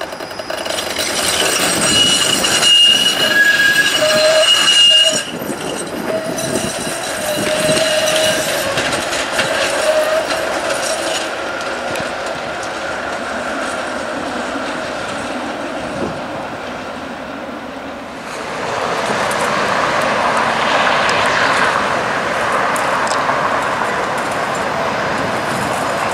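Flexity Outlook streetcar wheels squealing on the tight curve of the loop track as the car pulls away, in several steady high tones for about the first ten seconds, then dying into the running noise of the car and street traffic. From about two-thirds through, a louder steady rushing noise of another streetcar and cars approaching along the road.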